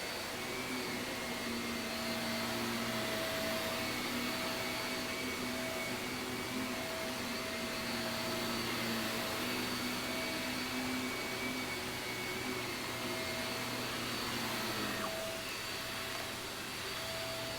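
Shark upright vacuum cleaner running steadily over carpet, its motor whine wavering slightly in pitch as it is pushed back and forth.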